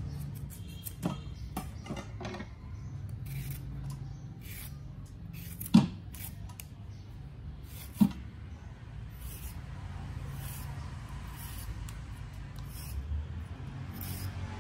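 Hand vegetable peeler scraping along a raw carrot in repeated short strokes. Two sharp knocks stand out, about six and eight seconds in.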